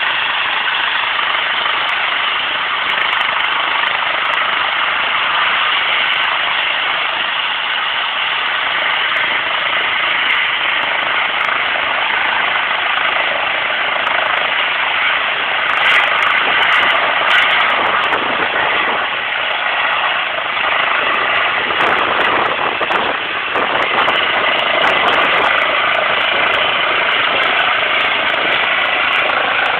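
Trauma helicopter's turbine engines and rotor running, a steady loud whine with a dense rushing noise that swells a little around the middle.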